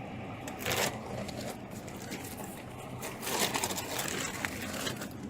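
Clothing rustling and being handled during a pat-down search, in two noisy bursts: a short one about a second in and a longer one from about three to four seconds in.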